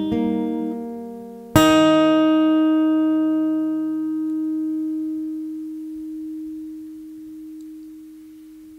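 Steel-string acoustic guitar closing a song: a last plucked note near the start, then a final chord struck about a second and a half in and left to ring, fading slowly away.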